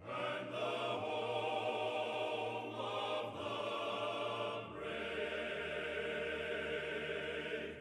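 Quiet sustained choral or choir-like music: a held chord that shifts in the bass a little before five seconds in.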